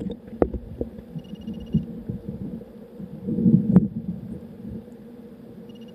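Irregular low thumps and knocks with rumbling, loudest about three and a half seconds in, and a short high rapid pulsing tone heard twice.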